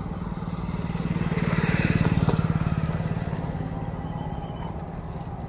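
A motor vehicle's engine passing by: a steady engine note that grows louder to its loudest about two seconds in, then fades away.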